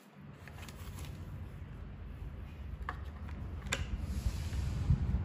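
Small handling noises: faint rustling and a few light clicks as a foam fuselage tail and its servo wires are handled, over a low steady rumble.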